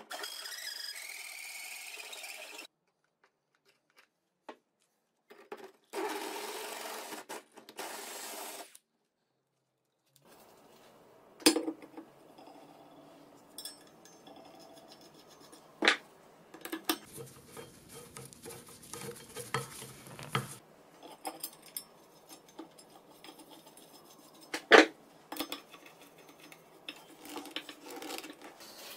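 Metal workshop parts being handled and worked. Two short stretches of steady noise come in the first nine seconds. After that come scattered sharp metal clinks and knocks with rubbing and scraping between them, the loudest knocks near the middle and about three-quarters through.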